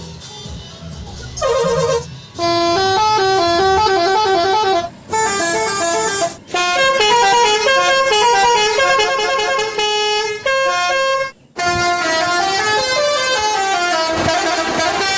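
Telolet horn of an odong-odong ride train playing a fast melodic tune, several horn tones sounding together and stepping from note to note, in phrases broken by short pauses.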